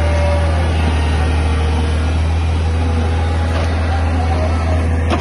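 Tata Hitachi EX200 crawler excavator's diesel engine running with a steady, loud low drone while the boom and bucket scoop and lift soil.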